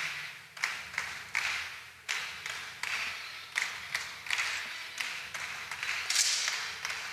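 Sharp claps, about two a second and not quite even, echoing in a large hall: spectators clapping a slow beat.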